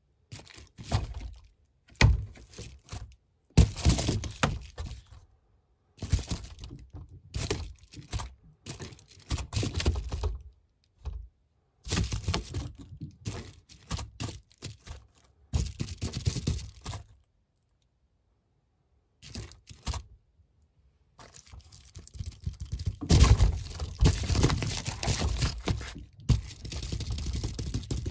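A cat pawing and batting at a door: irregular runs of thumps, knocks and scraping with short pauses between them, busiest near the end.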